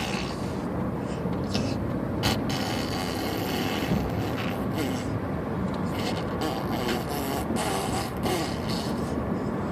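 A baby blowing raspberries, buzzing her lips together to make fart noises, in a near-continuous string with short breaks.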